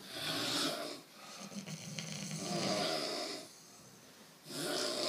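A person snoring in slow breath cycles: a short snore at the start, then a long rasping snore, a pause of about a second, and the next snore starting near the end.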